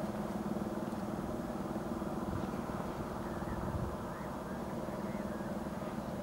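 A steady low mechanical hum with a few held tones, like a motor running.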